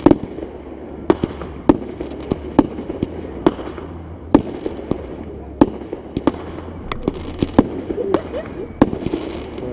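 Distant aerial fireworks bursting: a run of sharp bangs at irregular intervals, about one a second and sometimes two in quick succession, over a steady low hum.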